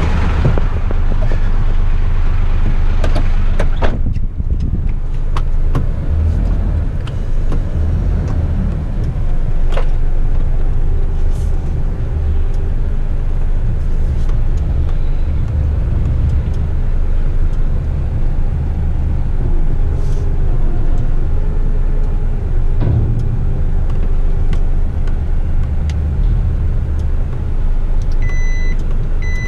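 Front-lift rubbish truck's diesel engine running, heard from inside the cab as a steady deep rumble with a few clicks. Near the end a repeated beeping starts.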